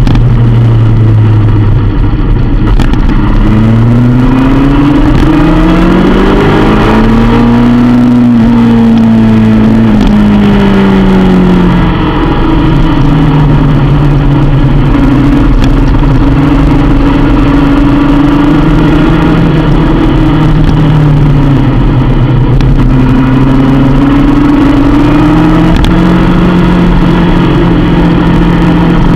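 Motorcycle engine running hard on a race track, heard loud and close through a camera mounted on the bike, with constant wind and road noise. Its pitch climbs steadily about four seconds in, drops back around ten seconds in, then rises and falls more gently as the bike accelerates and slows through corners.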